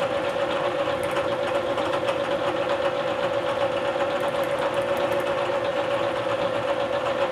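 Bridgeport vertical milling machine running, its spindle giving a steady hum with one clear tone over an even mechanical noise, while the table is hand-fed along the X axis past the end mill.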